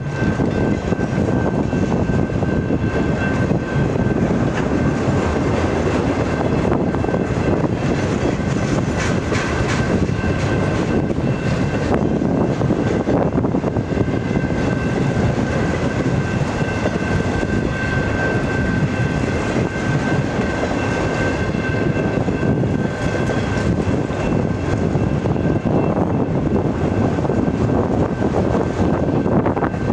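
Freight train of autorack cars rolling past at speed: a steady rolling noise of steel wheels on the rails, with a thin high whine held throughout.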